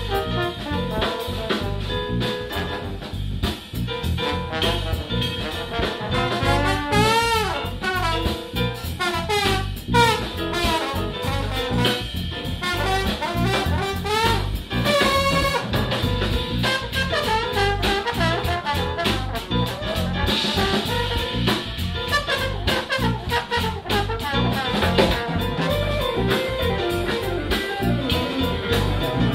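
Jazz big band playing live: brass and saxophones over a drum kit keeping a steady beat.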